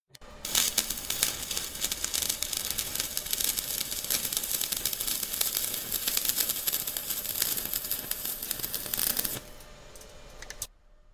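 Stick-welding arc crackling steadily as a thin 2 mm electrode runs at low amperage (40 A, DCEN) on thin sheet metal, a setting meant to avoid burning through. The crackle stops about nine seconds in when the rod is pulled away.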